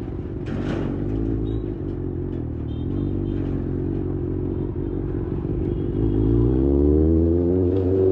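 Kawasaki Ninja ZX-6R's inline-four engine running on the road, holding a steady pitch, then rising in pitch and getting louder as it accelerates from about six seconds in.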